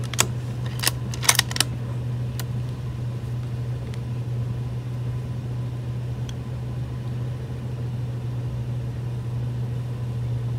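A vehicle engine idling steadily as a low, even hum, with a few sharp clicks in the first two seconds.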